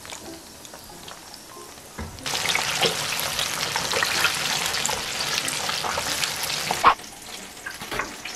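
Breadcrumb-coated glutinous-rice-batter hot dogs deep-frying in oil: a quieter sizzle for about two seconds, then loud, dense crackling sizzle for about five seconds. This ends with a sharp click near seven seconds, and it drops back to a quieter crackle.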